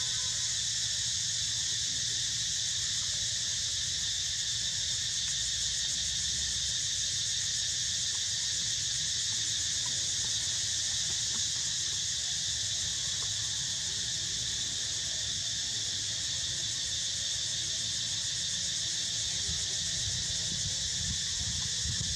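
A chorus of insects keeps up a steady, high-pitched shrill drone that does not change, with a low rumble underneath.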